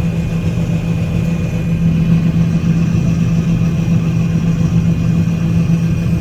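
John Deere 9500 combine running steadily while harvesting oats: a constant, even engine and machinery drone with a steady low hum.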